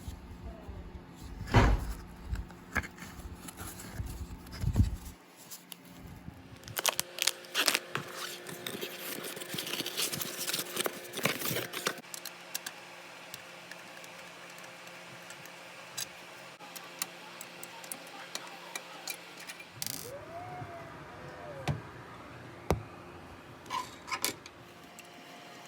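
Hands handling small hard parts and tools: scattered clicks, rattles and knocks over a steady faint hum, with heavy thumps in the first few seconds and a dense run of crackling clicks in the middle.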